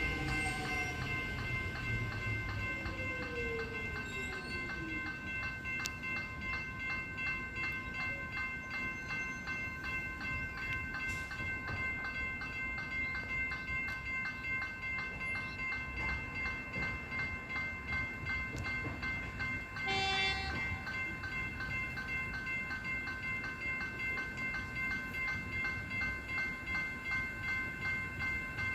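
Level crossing warning bells ringing in a steady repeating pulse, about twice a second, signalling an approaching train. A falling whine sounds in the first few seconds, and a brief toot comes about twenty seconds in.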